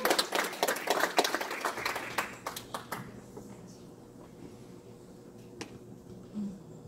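Congregation applauding, the clapping thinning out and dying away about three seconds in, leaving a quiet room with a single click later on.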